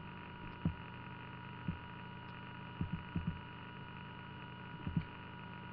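Steady electrical hum in the recording, with a thin whine around 1 kHz, broken by several short, soft low thumps.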